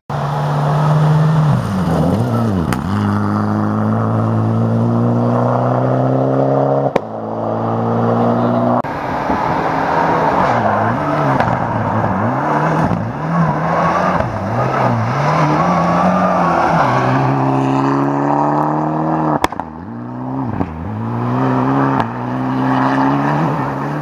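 Mitsubishi Lancer Evolution X rally car's turbocharged four-cylinder engine at full throttle on a gravel stage, the pitch climbing and then dropping at each gear change and dipping as the car passes. The sound breaks off abruptly a few times as separate passes are joined.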